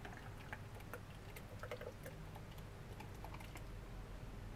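Faint, irregular small clicks and light scraping as a metal spoon pushes thick marinade out of a tipped glass bowl into a plastic funnel and squeeze bottle, over a low steady room hum.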